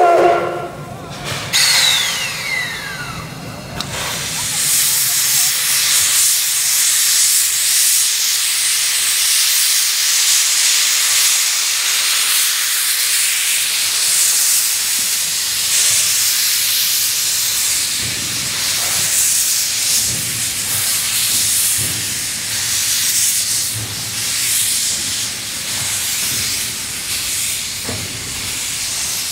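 Steam locomotive C56 160 venting steam in a loud, steady hiss that begins about four seconds in, after a short pitched sound and a brief falling whistle-like glide at the very start.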